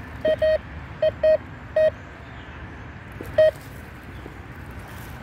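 Metal detector giving about six short beeps at one steady mid pitch, mostly in quick pairs, as its search coil passes over a metal target in the soil: a buried iron nail.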